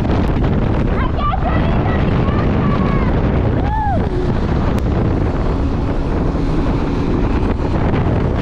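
Heavy wind rush on the camera microphone during a motorcycle ride in traffic, with the motorcycle's engine and road noise underneath. A short rising-then-falling voice-like tone cuts through a little before halfway.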